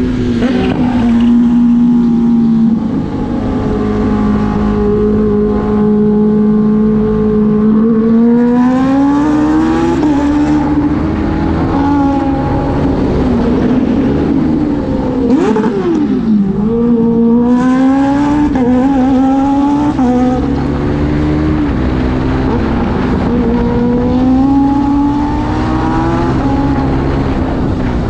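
Kawasaki Ninja H2's supercharged inline-four engine running under way, its revs climbing and dropping several times as the rider accelerates and shifts gears.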